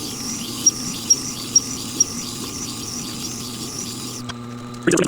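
A Tormek grinding wheel grinding the bevel of an old Stanley 220 block plane blade: steel scraping steadily on the turning stone with a light tick about twice a second. It stops about four seconds in.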